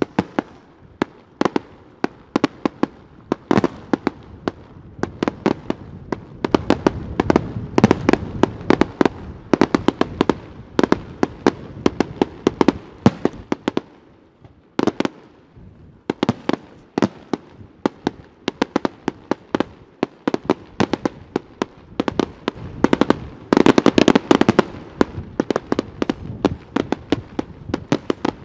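Aerial fireworks display: shells bursting overhead in a rapid run of sharp bangs, several a second. The bangs come thickest in a dense volley from about a quarter of the way in to nearly halfway and again near the end, with a brief thinning in the middle.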